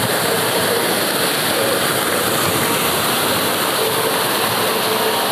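Ornamental fountain water pouring and splashing steadily into its basin, an even rushing hiss.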